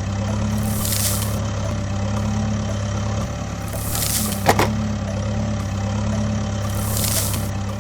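Vehicle engine running steadily with a low idling hum, with a whooshing swell about every three seconds and one sharp click about halfway through.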